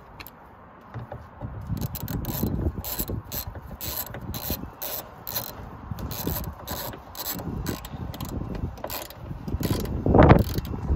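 Small hand socket ratchet clicking as it turns the wing mirror's mounting bolt in the door frame, in quick runs of several clicks a second as the handle is swung back and forth. There is a louder knock about ten seconds in.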